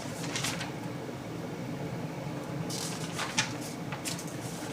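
A few short, crisp rustles and taps of paper being handled, over a steady low room hum.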